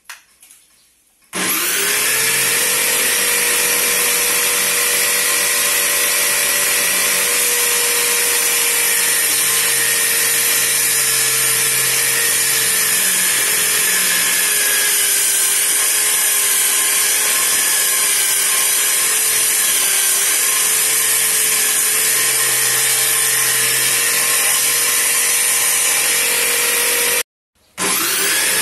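Electric drill spinning the circular saw blade of a homemade table saw: it starts up about a second in and runs with a steady whine. The pitch sags and wavers midway as a block of wood is pushed through the blade. It cuts out and starts again near the end.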